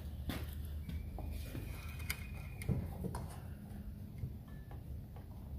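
Scattered light knocks and clicks of a wooden blank being handled and set against the fence on a compound miter saw's table, with the saw not yet running.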